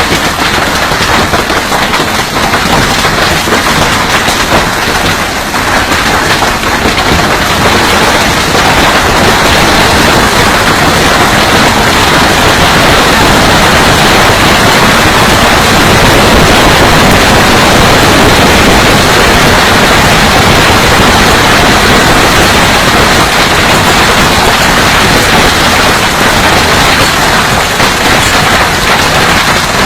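Heavy hailstorm: large hailstones pelting down in a dense, continuous clatter of countless impacts, loud throughout.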